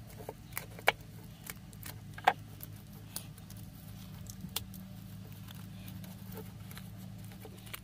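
Hands picking at and unwrapping a plastic-wrapped mailing tube: scattered crinkles and sharp clicks of wrap and packaging, the loudest about two seconds in, over a steady low hum.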